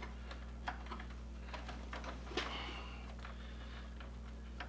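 Faint, scattered small clicks and taps as fingers work wires into a screw-terminal connector on a 3D printer's wiring, over a steady low hum.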